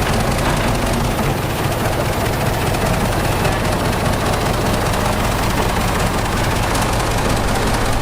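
Heavy diesel earthmoving machinery running steadily under load, a continuous dense engine noise with no pauses.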